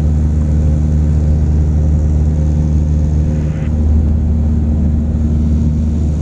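Cessna 172's four-cylinder piston engine and propeller droning steadily in cruise, heard from inside the cockpit.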